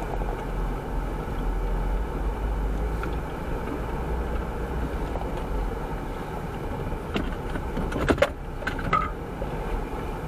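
Jeep driving, a steady low rumble, with a cluster of sharp knocks and rattles about eight seconds in.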